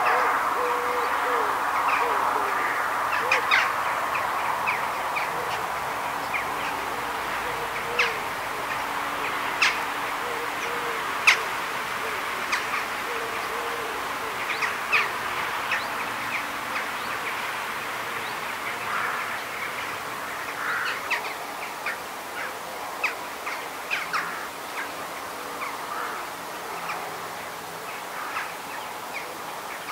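Birds calling outdoors: short, sharp chirps and calls scattered over a steady background hiss, with lower wavering calls beneath, slowly growing quieter.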